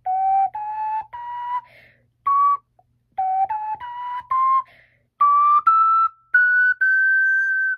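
Strawberry ocarina playing a scale practice: separate notes stepping up, breaking off and starting again from the bottom note, then climbing higher to a long held top note near the end.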